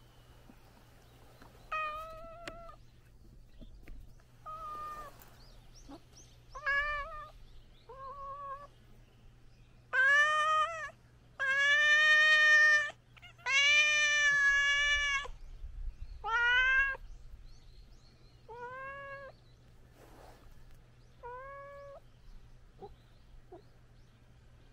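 Cat yowling in a fight standoff between an orange-and-white cat and a calico: a run of wavering yowls that start short and faint, grow long and loud in the middle, each over a second, then shorten and fade.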